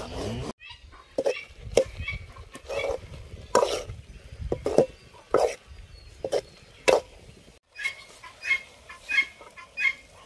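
Chickens clucking in a series of short separate calls, quicker and higher-pitched in the last couple of seconds.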